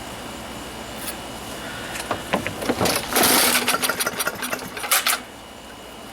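Craftsman lawnmower's small engine being pull-started: about two seconds in it fires and sputters irregularly, then it dies after about three seconds. It catches but won't keep running, and the owner goes looking for a missing little spring.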